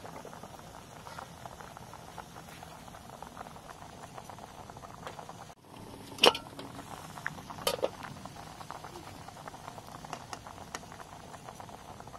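Steady bubbling and crackling from the cooking pot. About six seconds in, the aluminium pot lid clanks once with a brief metallic ring, followed by a few lighter knocks.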